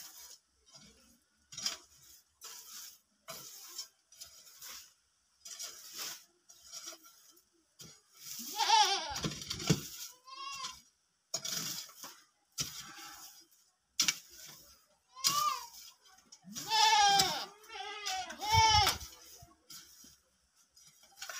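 Goats bleating in long quavering calls, a couple about halfway through and several more near the end. Between the calls, short thuds and scrapes of a kodal digging hoe striking and scraping soil.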